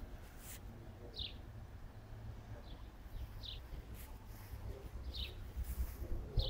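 A small bird chirping outdoors: short, high chirps that fall in pitch, one every second or two, over a faint low rumble.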